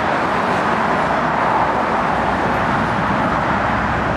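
Steady road traffic noise: an even, continuous rush of passing vehicles with no single event standing out.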